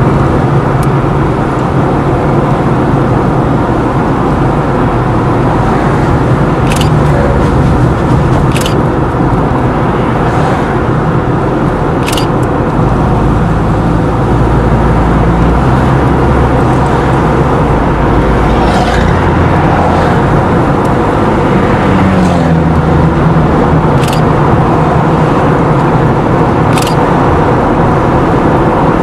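A car's engine and tyre noise heard from inside the moving vehicle, a steady loud rumble with low engine tones. A few short sharp knocks come through at irregular moments.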